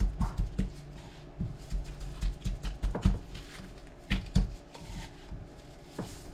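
Scattered soft taps, knocks and rubbing from hands sprinkling dry seasoning onto raw salmon fillets and working it in, with the sharpest knocks about three and four seconds in.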